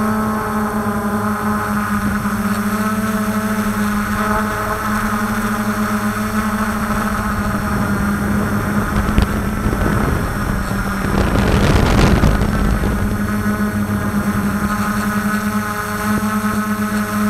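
DJI F450 quadcopter's motors and propellers whirring steadily at close range from the camera on board, a constant hum with higher whining tones above it. About two-thirds of the way through, a louder rushing noise swells for a couple of seconds, then dies away.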